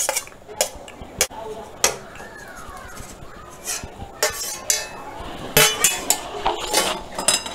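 Stainless steel utensils clinking and scraping against a steel bowl and pan as cooked penne is tipped into a thick sauce. There are several sharp clinks in the first two seconds, a quieter stretch, then a quick run of clinks near the end.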